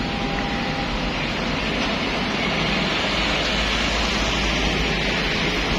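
Steady road traffic noise, an even hiss with a low rumble beneath.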